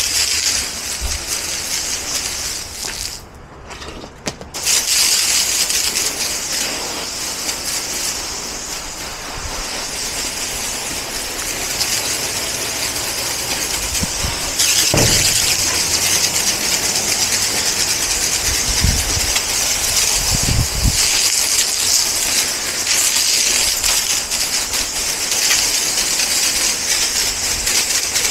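Water spraying from a handheld trigger spray gun onto a concrete walkway and garage wall, a steady hiss that cuts off briefly about three seconds in and then resumes.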